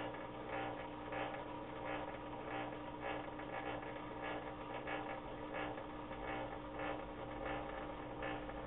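Steady hum of aquarium air-pump and filter equipment, with soft bubbling bursts roughly every half second from air bubbles rising through the tank water.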